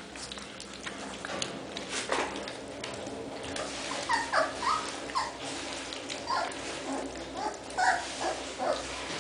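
Young basset hound puppies squeaking and whimpering, a string of short high squeaks in the second half, over the small clicks and smacks of lapping weaning mash from a metal tray.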